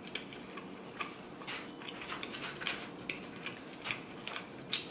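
Metal fork scraping and tapping in a white takeout container as food is picked up: faint, irregular clicks and scrapes.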